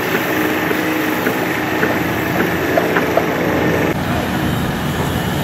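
Construction-site machinery running steadily: a diesel engine hum from the heavy cranes and plant, with a few light clicks and taps scattered through.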